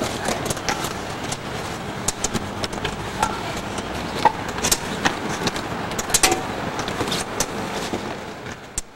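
Outdoor street background noise with irregular footsteps and taps on concrete steps, fading out near the end.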